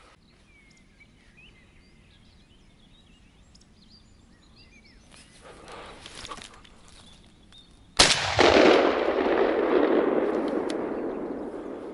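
A single shotgun shot about eight seconds in, its echo rolling and dying away over the next four seconds. Faint bird chirps come before it.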